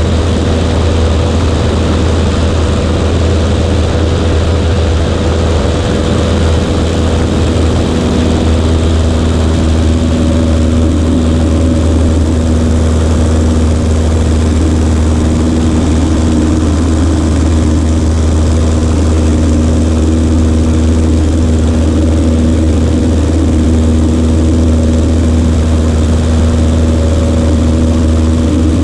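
Cessna 140A's piston engine and propeller running steadily in flight: a loud, even drone with a low hum, its pitch shifting slightly about ten seconds in.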